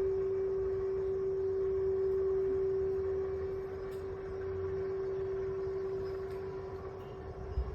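Large temple bell's sustained ring after being struck: one steady tone, slowly fading. A brief low bump near the end.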